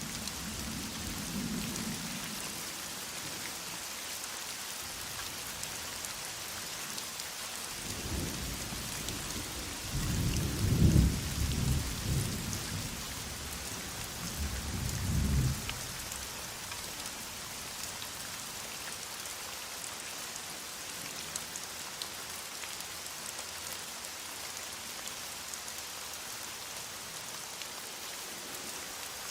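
Steady heavy rain hissing. Midway a long roll of thunder rumbles low, swelling to its loudest and rising again before it dies away.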